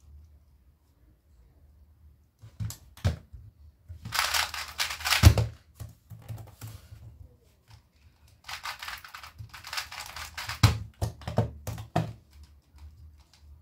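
Rapid plastic clicking of a 2x2 speedcube being turned fast, in two bursts of about one and a half to two seconds each. Sharp knocks come before, between and after the bursts, the loudest at the end of the first burst, as the cube and its cardboard cover box are set down and laptop keys are pressed.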